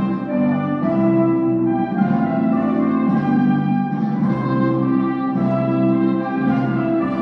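Orchestral music with brass instruments playing a slow melody of held notes.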